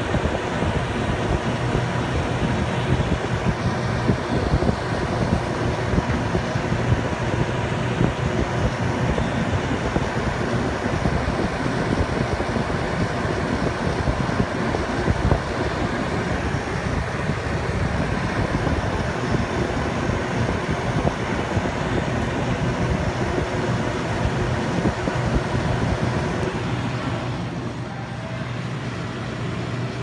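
Emmepi refrigerator's condenser fans running: a steady rush of air from the fan blades over a steady low hum. It gets a little quieter near the end.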